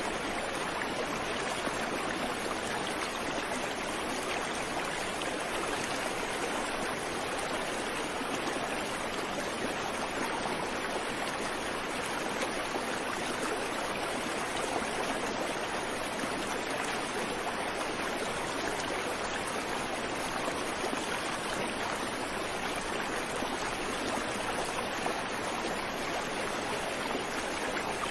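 Creek water flowing over rocks: a steady rushing and babbling with no birdsong.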